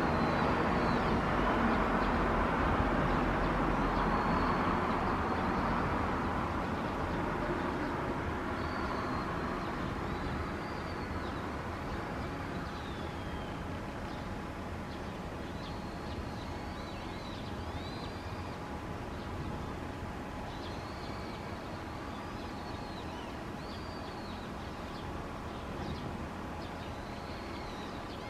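Jet engines of a departing Embraer E-Jet airliner, a broad rumble that fades steadily over the first ten seconds or so as the aircraft flies away, leaving a faint steady whine. Birds chirp repeatedly over it from about a third of the way in.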